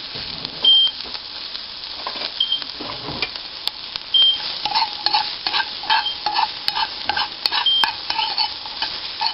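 Chopped peppers sizzling in a hot pan with olive-oil spray while being stirred; a utensil clicks and scrapes against the pan, more busily from about halfway. A short high beep repeats about every second and three quarters.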